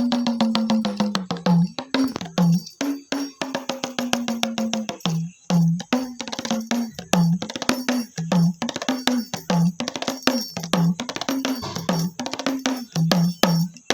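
Newly made khanjari, a small hand frame drum with jingles, played in a fast rhythm: quick hand strikes on the skin with the jingles rattling. Some held strokes ring at a low pitch that bends downward. This is a tone check showing the drum head has dried and the instrument is finished and ready.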